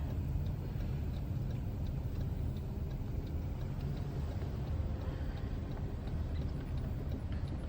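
Car driving at a steady speed: an even, low rumble of road and engine noise.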